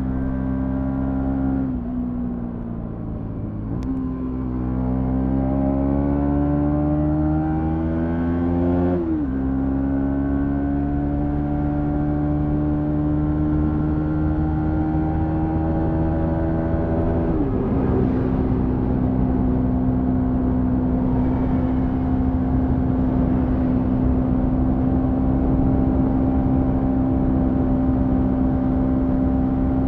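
Bajaj Pulsar NS200 FI's single-cylinder engine under load on a climb, heard from on board. Its pitch rises steadily as the bike accelerates, drops sharply at upshifts about nine seconds in and again near eighteen seconds, then holds at a steady cruise.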